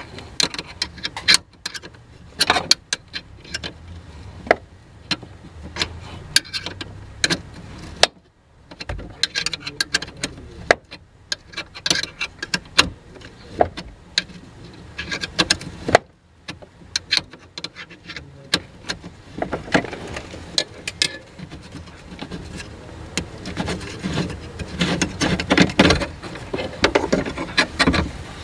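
Irregular metallic clicks, clinks and scrapes of a socket wrench turning and knocking against the mounting nuts and bolt of a van's clutch master cylinder, with a denser run of clicking over the last several seconds.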